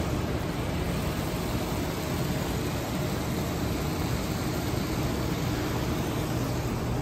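Water from a Jay R. Smith ground hydrant running through a hose and spraying out onto concrete: a steady hiss as the rebuilt hydrant is opened for a flow test.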